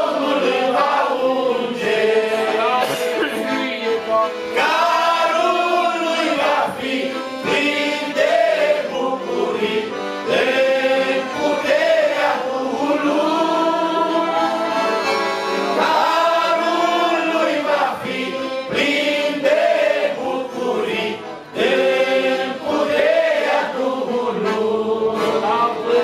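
A man sings a gospel hymn into a microphone, accompanied by a Roncalli piano accordion.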